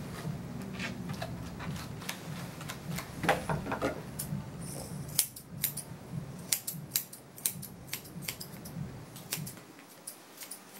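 Grooming shears snipping at a dog's paw fur in quick, irregular crisp snips that come thickest from about halfway through. A brief louder rattle comes about three seconds in.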